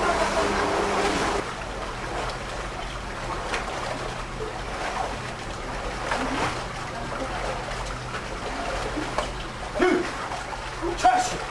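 Swimmers splashing and churning the water of a pool, with scattered small splashes. A steady hum cuts off suddenly about a second and a half in, and brief voices come in near the end.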